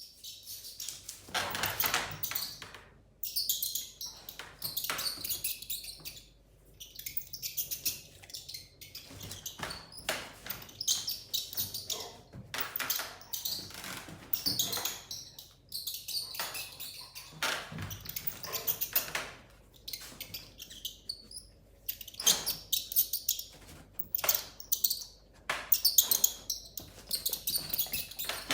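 Mouse squeaking sound effect played back: repeated bursts of rapid high-pitched squeaks, each lasting a second or two, with short gaps between them.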